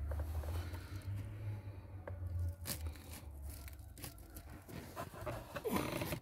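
A car cabin air filter being slid out of its plastic housing: plastic scraping and rustling with a few sharp clicks. The rustling grows busier near the end.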